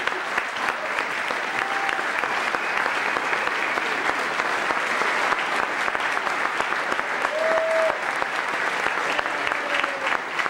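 Large audience applauding: a dense, steady patter of many hands clapping.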